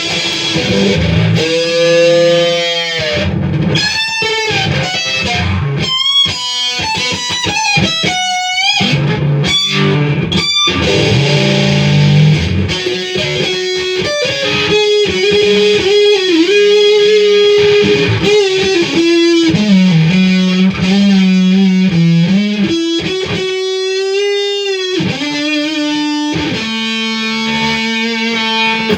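Electric guitar played with distortion through a Marshall Origin 20-watt amp: chords, then sustained lead notes with string bends and vibrato. The playing cuts off suddenly at the end.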